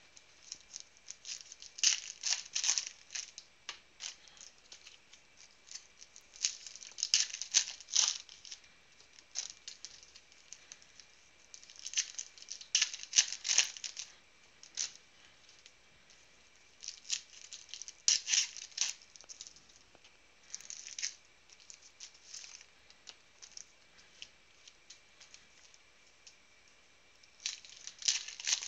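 Foil trading-card pack wrappers being torn open and crinkled by hand, in short crackly bursts every few seconds.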